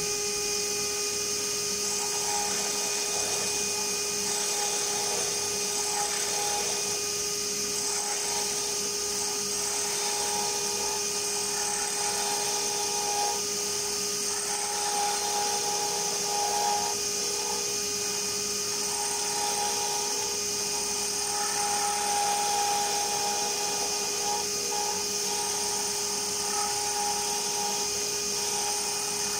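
JET wood lathe running with a steady whine while a flat chisel cuts the spinning wooden lure blank, the cutting sound coming and going every second or two.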